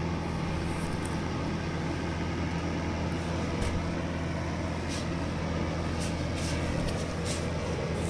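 Small electric fan heater running: its fan motor giving a steady low hum under an even whirr of blown air.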